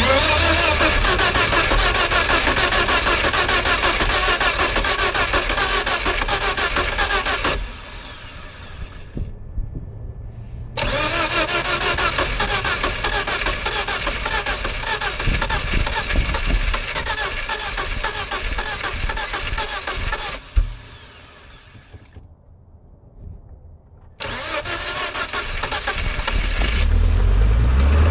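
1998 Volvo S70's inline five-cylinder engine being cranked by the starter with the throttle held wide open, in three long rhythmic cranking attempts separated by pauses. The engine is flooded: the first two attempts fail, and on the third it catches and sputters to life near the end.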